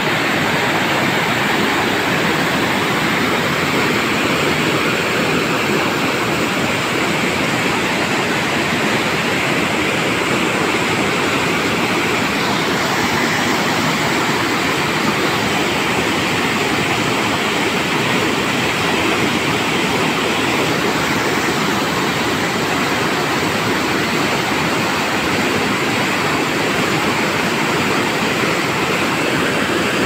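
Muddy floodwater pouring over a low concrete weir, a loud, steady rush of churning water with no let-up.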